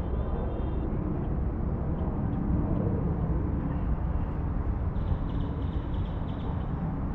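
Steady wind rumbling and buffeting on the microphone outdoors, with a faint high chattering about five seconds in.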